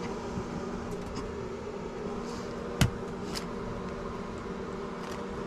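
A steady mechanical hum, like a fan running, with a few light knocks as dishes and pans are set down on a countertop; the loudest knock comes a little before halfway.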